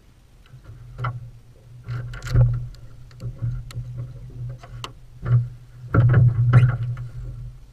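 Irregular knocks and thumps on a jon boat's hull and gear as a hooked catfish is brought alongside and landed. The strongest knock comes a little over two seconds in, and a cluster follows near the end.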